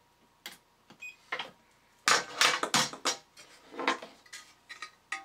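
A small battery spot welder fires on a nickel strip tab, with a faint click and a short beep about a second in. It is followed by loud metallic clattering and knocking as the tin toy's sheet-metal body is handled against a plate.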